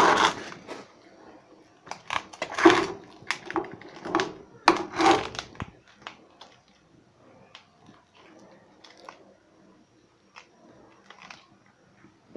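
A steel spoon mixing marinated chicken pieces in a metal bowl: wet mixing and scraping in a few short bursts over the first six seconds, then only faint taps.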